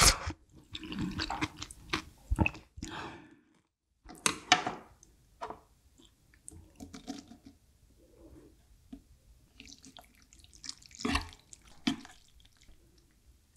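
Sipping spicy broth from a bowl, then chopped green chillies dropped into a bowl of ramyun and the noodles stirred with chopsticks through the broth: scattered wet splashes and drips, loudest about eleven seconds in.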